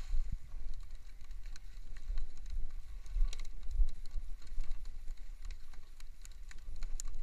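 Wind buffeting the microphone in an uneven low rumble, with scattered light clicks and taps.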